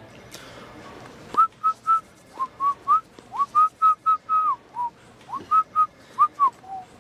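A man whistling a tune through pursed lips: a quick run of short notes, some sliding up or down into the next, starting about a second and a half in.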